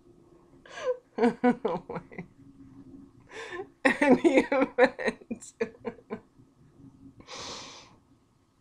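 A woman laughing hard in choppy fits, with breathy gasps between them and a long breath near the end.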